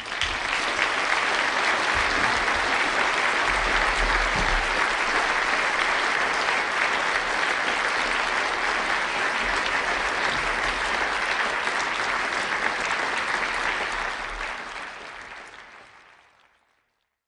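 A large audience applauding steadily after a lecture, fading out over the last couple of seconds.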